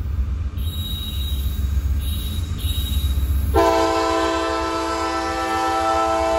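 Diesel locomotive air horn sounding, a steady chord of several tones that starts abruptly about three and a half seconds in and holds to the end, over a low rumble.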